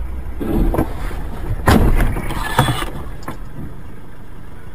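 Car on a snowy road crashing off to the side: a loud thud of impact about a second and a half in, followed by two smaller knocks, over the steady rumble of the car in motion.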